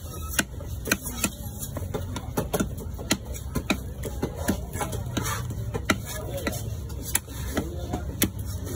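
Knife chopping fish into pieces on a round wooden log block: sharp knocks, about two or three a second, over a steady low rumble.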